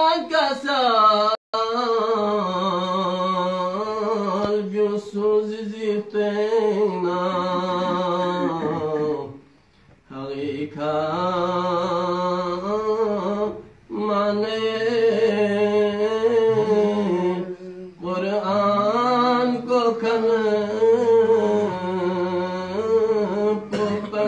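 A man chanting a devotional qasida in Balti, unaccompanied, in long wavering phrases with brief pauses for breath.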